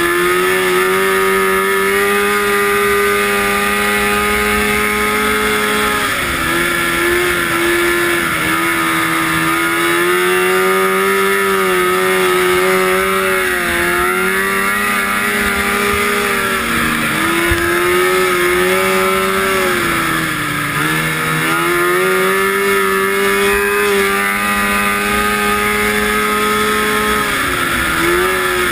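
Vintage 340 cc fan-cooled two-stroke snowmobile engine running hard at racing speed, heard on board. Its pitch holds high and drops briefly several times as the throttle eases, then climbs back.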